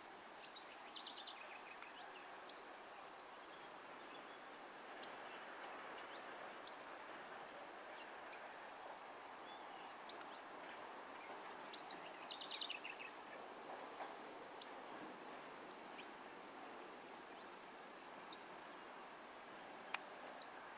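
Faint open-air background hiss with scattered short bird chirps, and two quick rapid bird trills, one about a second in and one near the middle.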